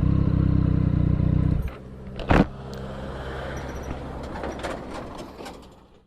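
Triumph Street Triple 765R's three-cylinder engine idling steadily, then switched off about a second and a half in. After it stops come scattered light clicks and one sharp knock.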